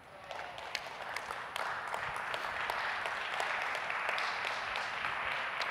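Audience applauding: scattered claps at first, swelling within about two seconds into steady clapping.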